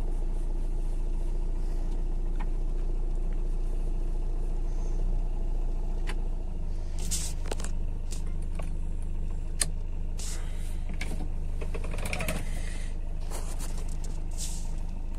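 Car engine running steadily, heard from inside the cabin as the car moves slowly, its low hum shifting about six seconds in. A few scattered clicks and rustles come in the second half.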